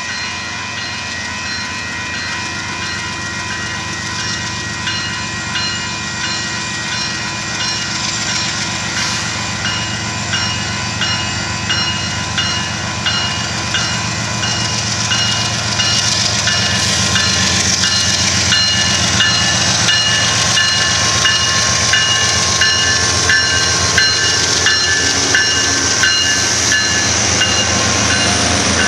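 Railroad crossing bell ringing steadily as a Union Pacific diesel freight train approaches, its locomotives growing louder. From about halfway on, the lead locomotives pass close by, with the rumble of the engines and the clicking of wheels over the rails.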